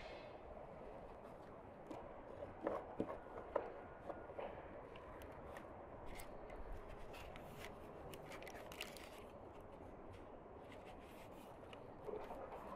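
Small scissors snipping raw bread dough: a few soft clicks of the blades, loudest a few seconds in, then fainter ticks as the dough is worked by hand.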